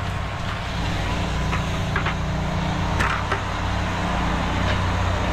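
Soft-wash spray rig's pump running steadily with a low motor hum, a little louder from about a second in, with a couple of light clicks about two and three seconds in.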